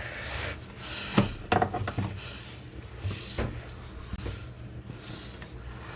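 Irregular clinks and knocks of hand tools against metal, from a socket and wrench being set on the transmission mount nuts under a car, over a steady low hum.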